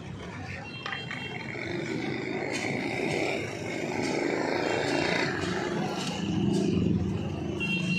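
Street traffic noise with a motor vehicle engine running, getting louder about six seconds in, and a few light clicks.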